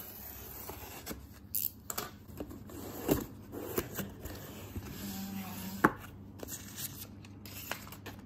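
Cardboard shipping box being handled and opened by hand: scrapes and rustles of cardboard and packing tape, broken by a few sharp knocks and clicks.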